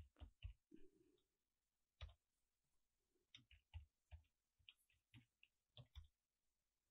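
Faint computer keyboard keystrokes typing a login: a quick run of key clicks at the start, then scattered single taps.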